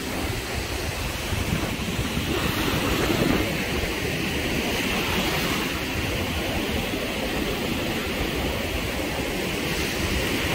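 Surf breaking and washing up on a sandy beach, a steady rushing hiss, with wind buffeting the microphone as a low rumble.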